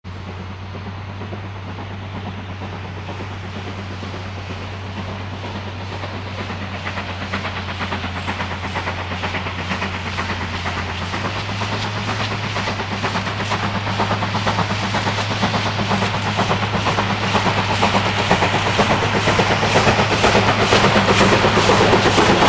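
A steam train approaching and growing steadily louder, its noise building into a rapid rhythmic beat, over a steady low hum.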